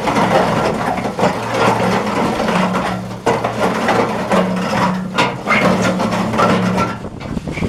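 Paddle mixer of a KOMPAKT-15 mobile concrete plant running, with the grinding, scraping churn of wet concrete and aggregate being stirred by the mixer arms over a steady drive-motor hum.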